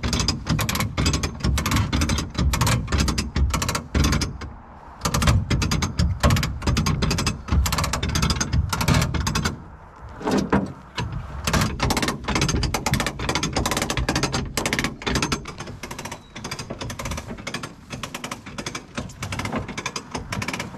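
Hand-operated ratcheting winch (come-along) clicking rapidly as it is worked to drag a heavy longline reel into a truck bed. The clicking pauses briefly twice and is softer near the end.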